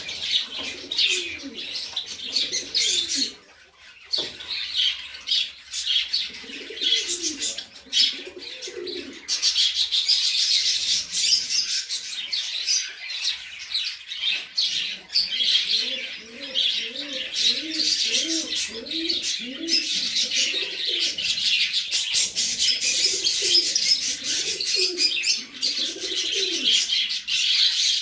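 Fantail pigeons cooing in several bouts of repeated phrases, over a constant high chirping of small birds.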